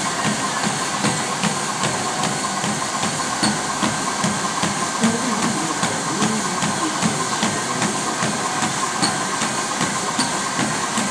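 Running footfalls on a treadmill belt, an even thud about three times a second, over the steady hiss and hum of the treadmill's motor and belt.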